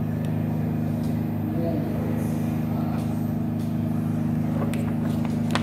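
Simulated engine sound of a small single-engine propeller plane, a steady low drone from the flight simulator's speakers, with a couple of sharp clicks near the end.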